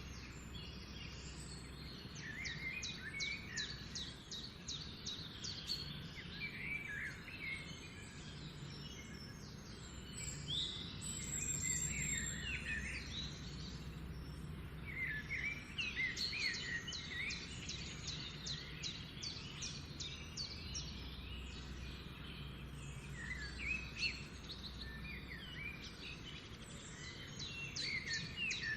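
Several small birds chirping and singing in overlapping phrases, with quick trills and short chirps coming in clusters, over a steady low background rumble.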